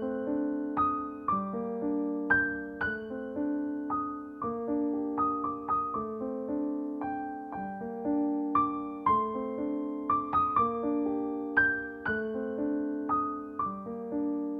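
Background piano music: a melody of struck notes over low chords.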